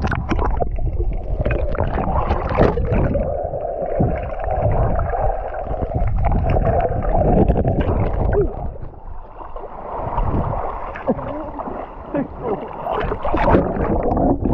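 Seawater sloshing and gurgling around an action camera held at the surface, dipping under and coming back up, with small splashes from a swimmer's hand. The sound stays muffled through most of it, with sharper splashes near the end.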